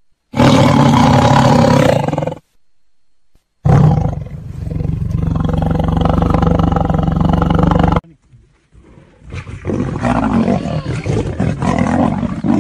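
Big cats roaring: a two-second roar about half a second in, a longer one from about four to eight seconds, then a choppier, uneven run of roaring from about nine seconds on.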